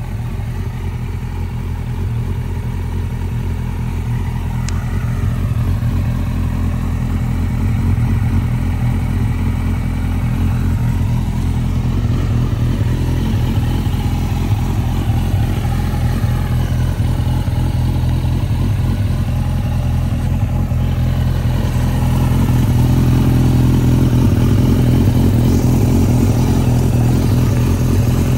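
1995 Suzuki GSX-R 1100's inline-four engine idling steadily through a full Yoshimura RS-3 stainless exhaust system. It grows louder about three-quarters of the way through, heard close to the exhaust headers.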